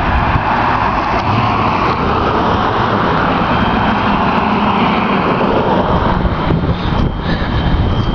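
A car passing on the street, its tyre and engine noise fading out over the first six seconds or so. About seven seconds in, a steady high-pitched electronic alarm tone begins sounding continuously, like a building's fire alarm.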